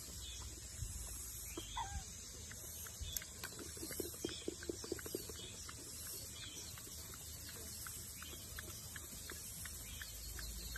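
Animal calls: a quick run of about eight short, low calls about three to five seconds in, over a steady faint high hiss.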